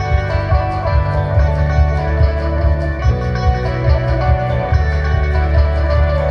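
Live rock band playing through a PA, heard from the audience: electric guitar over a heavy bass line and drums with a steady cymbal beat.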